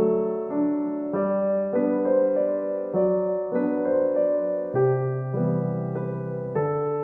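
Gentle background piano music, soft notes and chords changing about every half second.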